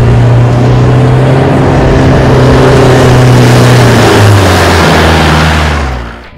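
Volkswagen T3 Syncro van's engine pulling hard up a loose gravel slope, with gravel noise under the tyres. The engine note holds steady, then changes pitch about four seconds in as the van passes close by, and fades out near the end.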